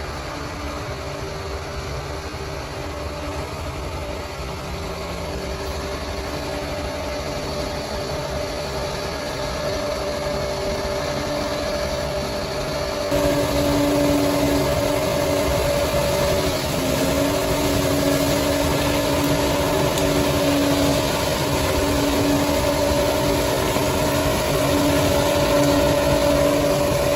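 Bulldozer's diesel engine running steadily with a constant drone. It grows gradually louder, then jumps up in level abruptly about halfway through.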